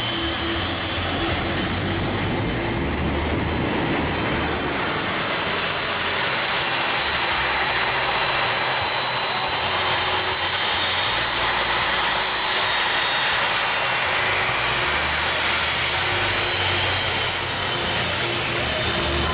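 Jet engines of a Boeing 747 running loud for takeoff: a steady rushing jet blast with a thin high whine over it.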